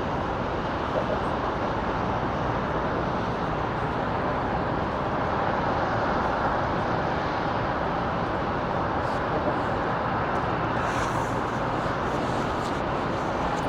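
Steady city ambience dominated by an even roar of distant road traffic, with a few faint light ticks in the second half.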